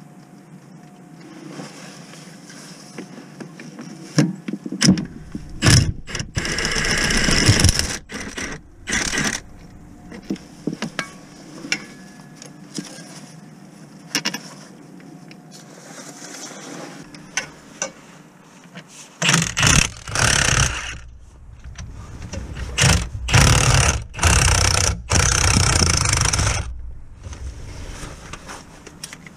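A handheld power tool run in repeated short bursts of one to two seconds, in two clusters: one about four to nine seconds in, another from about nineteen to twenty-seven seconds. Between them, scattered sharp metal clicks and knocks of tools on fittings.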